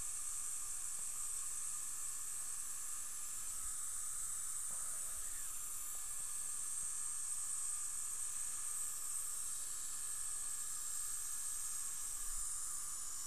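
Steady, even hiss of running dental equipment, with a faint high whine and low tones underneath.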